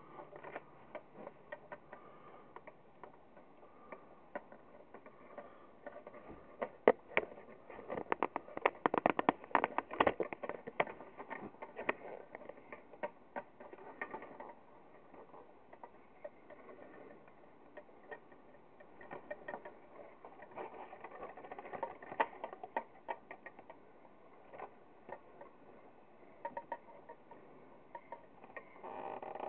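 Irregular clicks, scrapes and rustles of a lighted beer advertising clock being handled and turned over in the hands, busiest about a third of the way in and again about two-thirds through.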